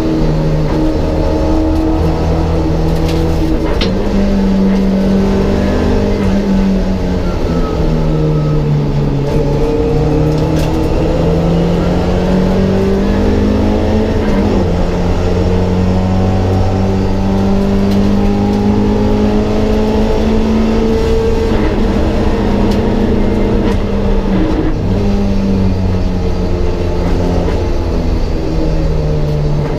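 Mk1 Ford Escort race car's engine heard from inside the stripped cabin under racing load, its pitch climbing and dropping several times with throttle and gear changes.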